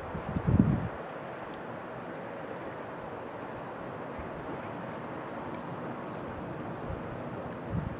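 Steady rushing wind noise, with low buffets of wind on the microphone about half a second in and again near the end.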